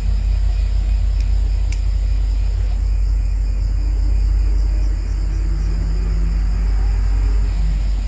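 Steady low rumble of background noise, with insects chirping in thin, high, continuous tones.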